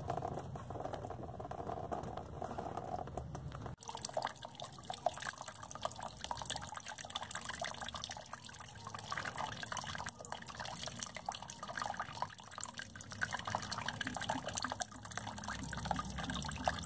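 Liquid trickling and splashing from a car's cooling system during a coolant drain and flush.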